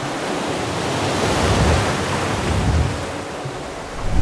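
Sea surf rushing: a wash of wave noise that swells to a peak about halfway through and then eases off, with two deep thumps underneath.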